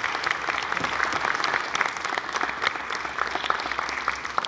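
Wedding guests applauding steadily, a dense clatter of many hands clapping.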